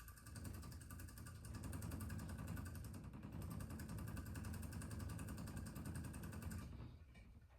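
Golden hamster's cage water bottle rattling in a fast, steady buzz as it resonates against the cage, set going by the hamster. It stops abruptly near the end.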